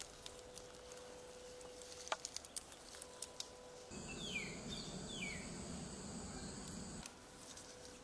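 Quiet outdoor ambience with a few faint ticks. From about four to seven seconds in, a louder stretch holds two falling bird calls over a steady high-pitched insect-like whine; it starts and stops abruptly.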